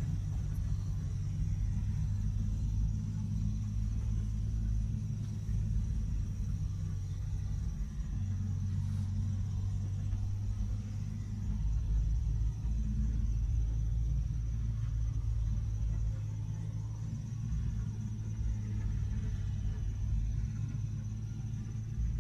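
Heavy mining machinery's large diesel engines running with a steady low rumble, with a faint steady high-pitched whine above it.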